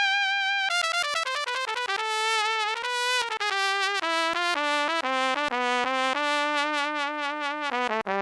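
Sampled brass instrument from an SF2 soundfont playing a solo melody one note at a time: a held high note first, then a run of short and held notes, some with vibrato.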